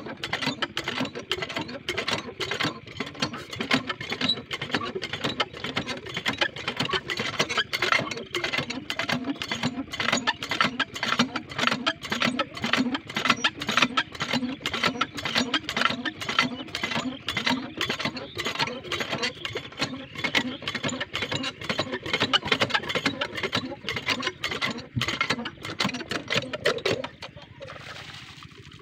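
Small engine of an irrigation water pump running with a rapid, rough, even beat. Near the end the engine sound cuts off and water is heard splashing from the pump.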